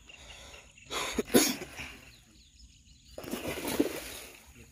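A hooked rohu thrashing and splashing at the water's surface while being played on a rod: two bursts of splashing, about a second in and again for about a second from three seconds in.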